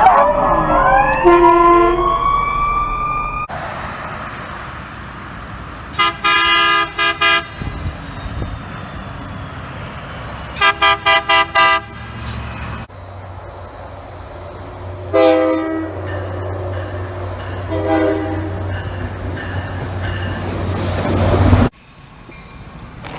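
Several different multi-tone air horns, each sounded in bursts. There is a quick run of short blasts about six seconds in and again about eleven seconds in, then two single blasts over a steady low rumble that cuts off abruptly near the end.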